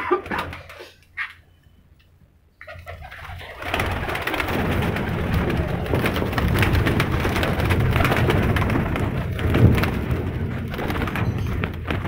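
Domestic pigeons in a loft: a quick flutter of wings at the start, then from about three seconds in a loud, steady din of many pigeons beating their wings and cooing.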